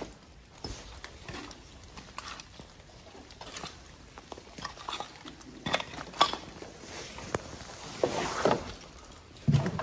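Footsteps crunching over rubble and debris, with irregular clinks and rattles of broken material and scrap metal underfoot, and a louder low thump near the end.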